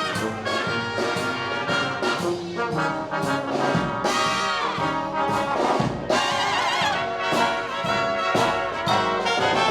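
Brass band playing a lively tune, with trombones and trumpets to the fore.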